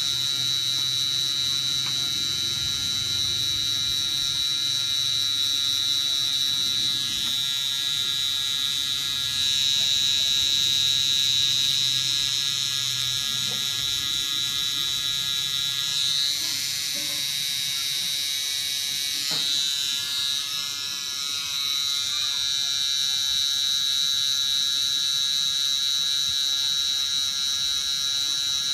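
Cosmetic tattoo (permanent makeup) pen running: a steady, high-pitched motor buzz whose tone shifts slightly a few times as it works.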